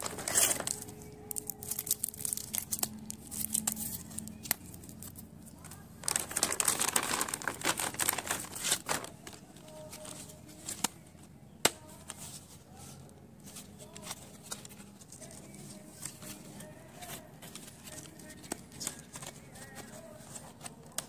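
Plastic packaging of a stationery kit crinkling and rustling as it is handled and pulled open. The rustling is loudest at the very start and in a longer stretch about six seconds in, with scattered small clicks and taps between.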